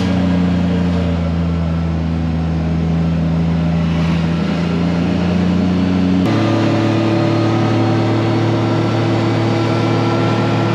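Open side-by-side utility vehicle driving along a road: a steady engine hum with road and wind noise. The hum jumps abruptly to a different pitch about six seconds in.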